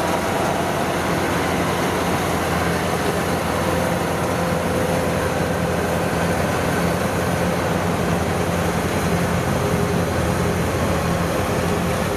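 Rice combine harvester's diesel engine running steadily under load as the machine cuts standing rice: a constant, even drone.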